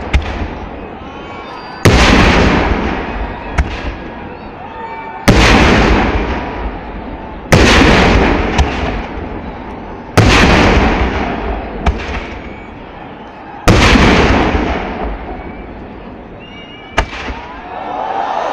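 Festival fireworks: large firework shells exploding in the sky one after another, five heavy booms a couple of seconds apart, each rumbling away slowly. Sharper single cracks go off between the booms.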